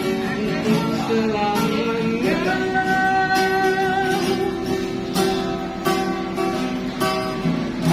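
Acoustic guitar strummed in a steady rhythm by a street busker, with a voice singing a long held note that slides up about two seconds in.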